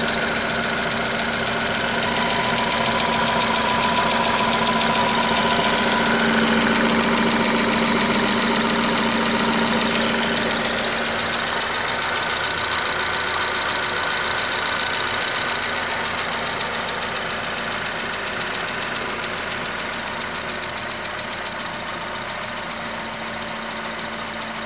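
Nissan Qashqai's HR16 1.6-litre four-cylinder petrol engine running with a rapid, even knock. The knock persists despite two engine flushes and an oil change.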